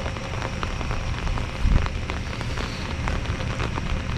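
Rain falling, with many small drop ticks close by and a low thump about one and a half seconds in.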